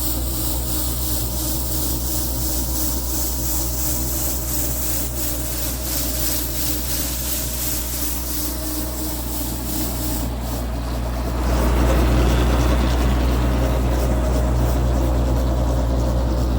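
A machine running with a steady low hum and fine regular ticking. About eleven seconds in, a louder rough rasping or rubbing noise joins in.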